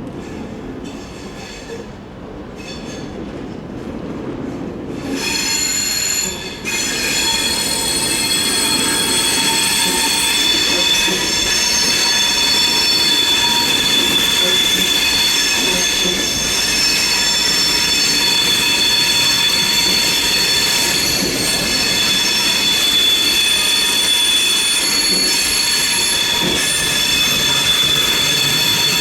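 Train wheel flanges squealing against the rails on a curve: a loud, high-pitched squeal of several steady tones sets in about five seconds in over the train's rumble, drops out for a moment, then holds.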